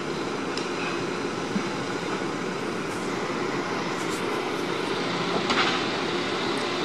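Diesel engines of a Renault Midlum and a Scania P400 fire engine running steadily as the trucks pull slowly out of the station. A short hiss about five and a half seconds in.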